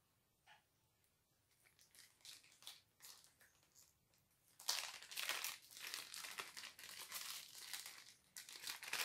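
Clear plastic wrapper of a wax melt being handled and opened: a few faint rustles at first, then steady dense crinkling from about halfway in.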